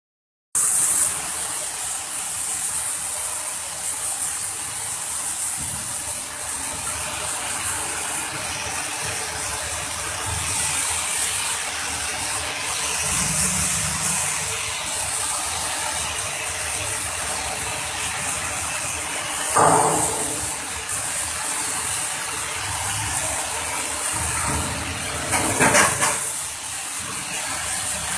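Steady hissing crackle of arc welding on steel plate, with two short louder bursts, one about two-thirds of the way in and one near the end.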